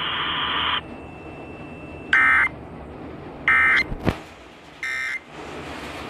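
Emergency Alert System end-of-message code heard over the radio: three short bursts of buzzy data tones, about a second and a half apart, with hiss underneath. A single sharp click comes about four seconds in.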